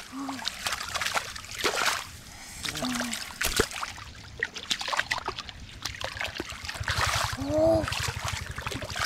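Hands splashing and sloshing through shallow muddy water, in irregular splashes and trickles.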